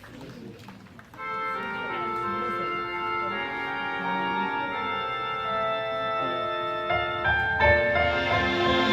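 Music starts about a second in with sustained keyboard chords, like an organ or synth pad; a deeper bass part comes in near the end.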